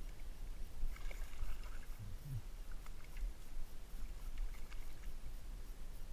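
Small water splashes and sloshing as a hooked ide is drawn to a landing net in shallow water, a few short splashes scattered over a low steady rumble.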